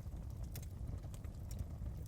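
Wood fire burning in a fireplace, with a steady low rumble under irregular sharp crackles and pops.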